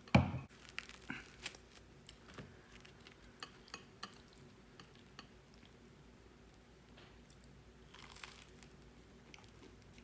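A heavy thump, then crisp crunching and crackling as toasted cheesy garlic bread is bitten into and chewed, with a softer rustle about eight seconds in.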